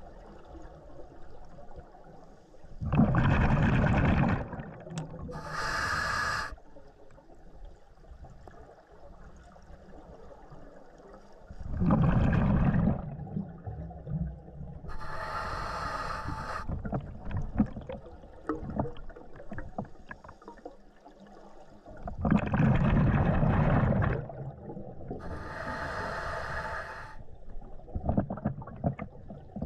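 Scuba diver breathing through a regulator underwater, three breaths about nine seconds apart. Each breath is a loud rush of exhaled bubbles followed by the hiss of the regulator on the inhale, with faint crackle and pops in between.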